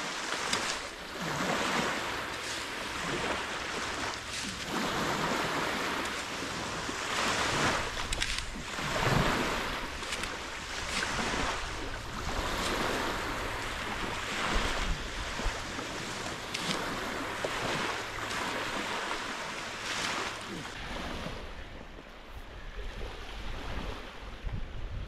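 Small Lake Superior waves washing onto a sandy beach in swells every second or two, with wind rumbling on the microphone that eases near the end.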